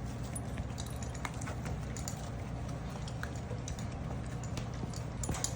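Puppies moving about and eating kibble: light, scattered clicks and taps over a steady low hum.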